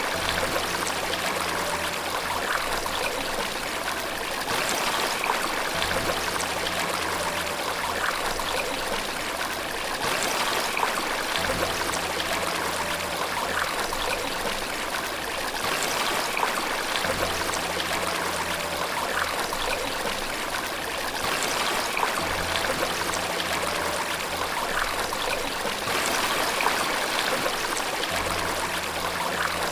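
Steady rush of flowing water, like a stream or small waterfall. Underneath it, soft low sustained notes come in for a few seconds at a time, about every five or six seconds.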